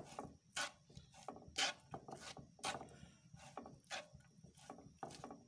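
Spatula scraping and stirring grated onion around a frying pan, in irregular strokes about two a second.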